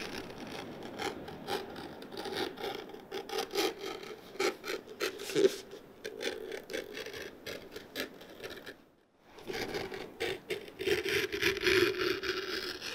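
Quick, repeated scraping strokes of a hand tool worked over an old leather boot. The strokes break off for about half a second around nine seconds in, then resume and grow louder near the end.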